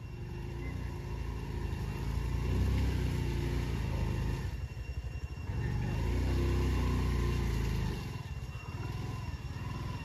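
A vehicle engine running under load. It pulls harder twice, about two seconds in and again around six seconds, then eases off sharply about eight seconds in.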